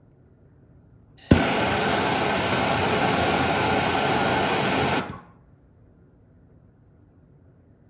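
Soldering torch lit with a sharp click about a second in, its flame hissing steadily for about four seconds and then shut off abruptly, heating a brass sweat fitting for soldering.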